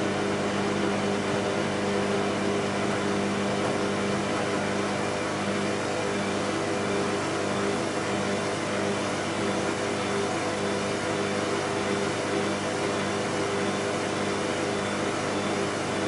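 Bosch WAB28220 washing machine with its drum spinning the laundry: a steady motor hum with a constant low tone over the rush of the turning drum.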